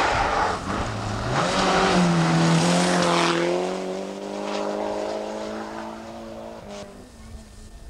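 Rally car engine at full throttle passing close on a gravel road, with a loud hiss of flung gravel as it goes by. The engine note then holds steady and fades away, dropping off near the end.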